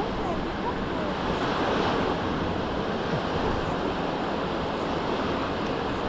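Small Mediterranean waves breaking and washing up on a sandy shore, a steady surf hiss that swells slightly about two seconds in, with wind buffeting the microphone.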